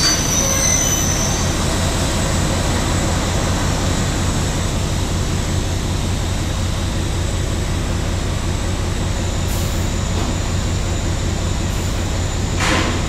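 Diesel engine of a yellow work-train locomotive running steadily as the train rolls slowly with its flat wagons, a constant low hum. A short hiss comes near the end.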